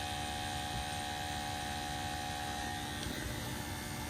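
Old Peerless gas-fired boiler firing at steady burn: a steady hum with several steady tones over an even rush of burner noise.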